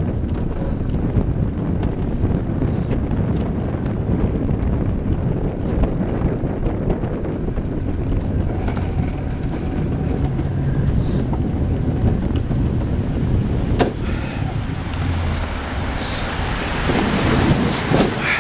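Wind buffeting the microphone over the steady rumble of an Alpsee Coaster alpine-coaster sled running on its steel rails. There is a sharp click about fourteen seconds in, and the noise grows brighter and louder near the end as the sled runs past the slow-down signs into the covered station.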